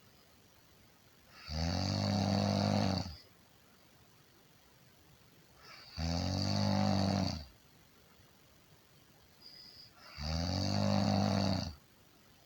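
A person snoring: three long snores, each about a second and a half, coming roughly every four seconds with quiet breathing gaps between them.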